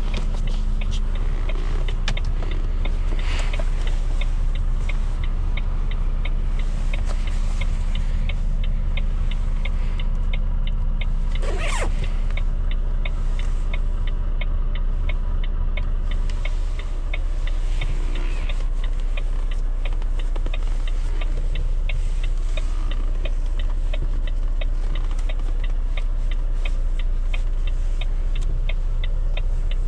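Volvo FM4 truck engine running steadily, heard from inside the cab while driving, with a regular fast ticking throughout. A steady hum drops out about halfway through, and a brief rising whine sounds about twelve seconds in.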